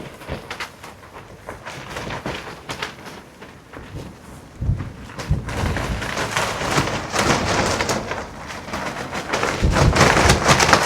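Strong wind buffeting the microphone, with loose satin clothing flapping and crackling in the gusts. It is lighter for the first few seconds, then a gust comes in about halfway through and the rush grows loudest near the end.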